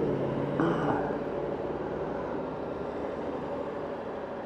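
Motorcycle engines idling at a standstill, a steady low running sound with traffic noise around it.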